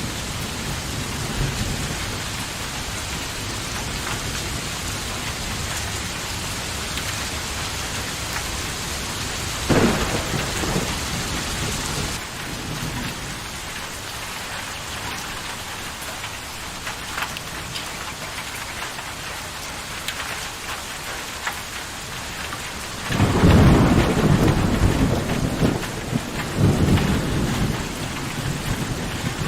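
Steady heavy rain with thunder: a sharp crack about ten seconds in, and a long low rolling rumble near the end.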